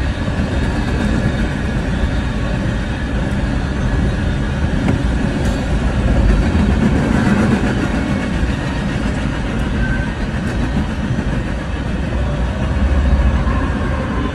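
Freight train cars rolling past a level crossing: a steady, loud rumble of wheels on the rails with a few faint clicks, heard from inside a stopped car.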